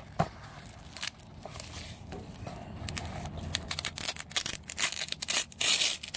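Hook-and-loop (Velcro) closure along a nylon webbing cache belt being peeled open by hand in short rasping rips, loudest and longest about four to six seconds in, amid handling noise.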